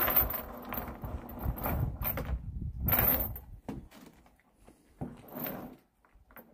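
A dog's metal tie-out chain rattling and dragging across wooden deck boards as the dog moves about, with a louder clatter about three seconds in and another about five seconds in.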